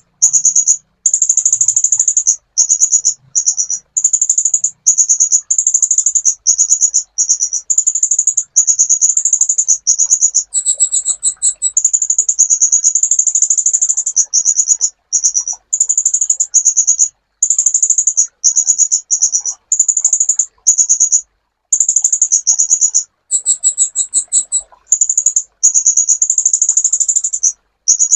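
Sunbird song: rapid, high-pitched trilled phrases repeated one after another with short gaps. Twice, at about ten seconds and about twenty-three seconds in, it switches briefly to a different phrase with a lower tone beneath it.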